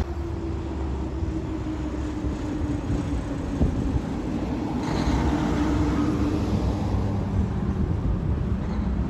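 Diesel engine of a dump truck pulling away and picking up speed: a steady low rumble with a droning tone, swelling louder about five seconds in.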